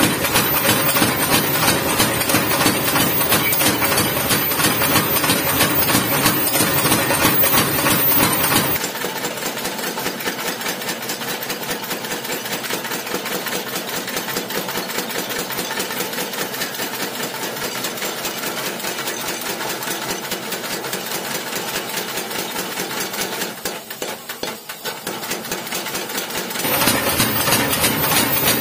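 Mechanical blacksmith's power hammer pounding a red-hot ship's valve on its anvil in rapid, steady blows, flattening the steel. The blows turn quieter and thinner from about nine seconds in, and are loud again near the end.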